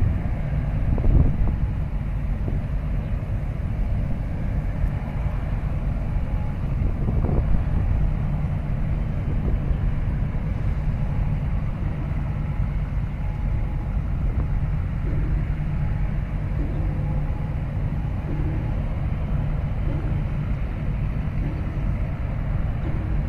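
Steady low engine rumble from ships in the harbour, with wind buffeting the microphone.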